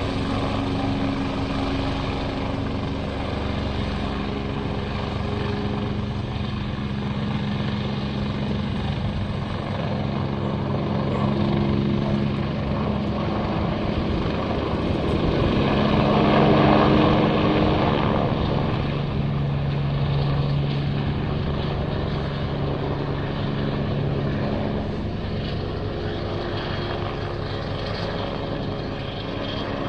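Helicopter flying overhead, its engine and rotor running steadily; the sound grows louder a little past halfway through, then eases off.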